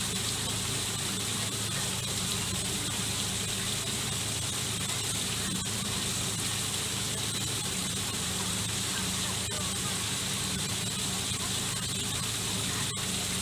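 Small rock waterfall splashing steadily into a garden koi pond, with a low steady hum underneath.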